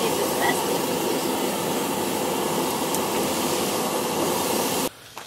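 Steady hiss of a hot portable gas griddle with steak sizzling on it as the meat is laid down. It cuts off suddenly near the end.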